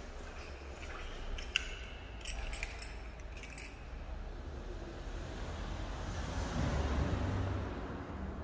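Light metallic jingling and clinking, a handful of sharp clicks in the first few seconds, over a low steady hum. Near the end a low rumble swells and fades.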